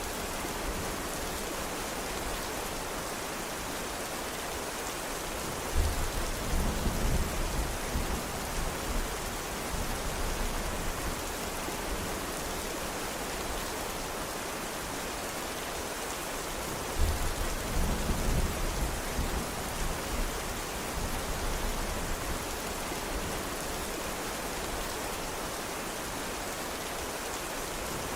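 Steady rain hissing, with low rolls of thunder that break in suddenly about six seconds in and again about seventeen seconds in, each rumbling on for several seconds.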